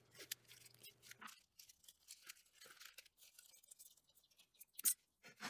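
Faint crinkling and rustling of newspaper and masking tape being wrapped and pressed around an electric motor's pulley, with scattered small ticks and two sharper ones near the end.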